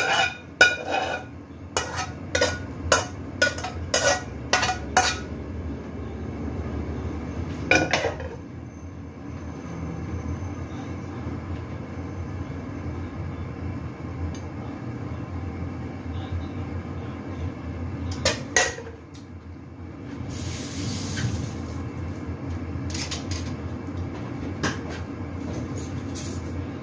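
A metal spatula clanking and scraping against a wok and a large stainless steel bowl as fried vegetables are scraped out. There is a quick series of sharp clanks, about two a second, for the first five seconds, then occasional single knocks and a few more clanks near the end, over a steady low hum.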